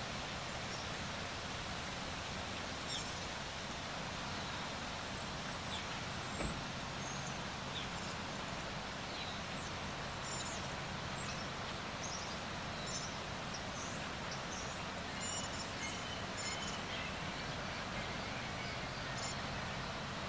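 Outdoor ambience: a steady rushing background noise with birds chirping, short high calls scattered throughout and thicker in the second half. There is one soft knock about six seconds in.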